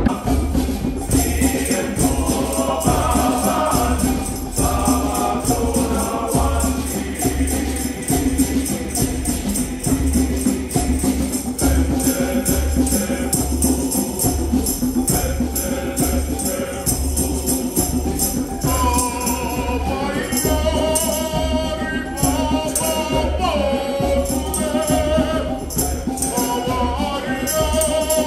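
Men's glee club choir singing in full harmony over a steady percussive beat. Higher melodic voices come in over the ensemble about 19 seconds in.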